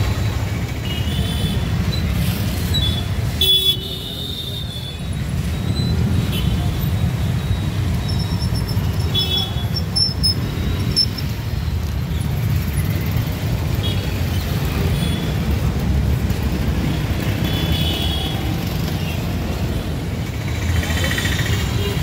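Street traffic noise: a steady low rumble of passing vehicles, with short high horn toots every few seconds.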